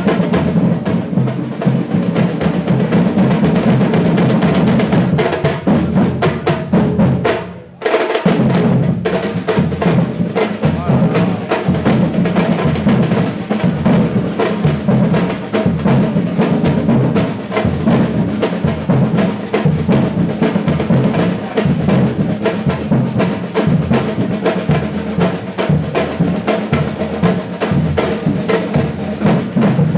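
Brazilian batucada percussion ensemble playing a driving drum groove, with deep bass drums under snare and hand-drum patterns. About seven and a half seconds in, the drums cut out for a brief break, then all come back in together.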